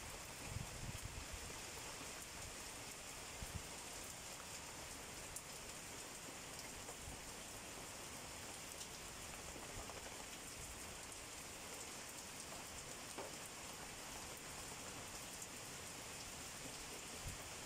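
Steady rain falling on broad banana leaves and surrounding vegetation, an even hiss throughout. A few soft low thumps come about a second in.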